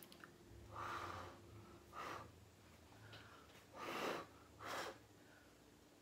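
Four short puffs of breath blown onto wet acrylic paint on a canvas to push the paint into place. The first puff is the longest, and the last two come close together.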